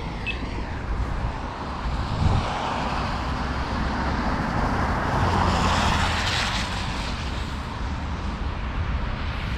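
Street traffic at an intersection: a car passes by, its tyre noise swelling to a peak about six seconds in and fading away, over a steady low rumble of road noise.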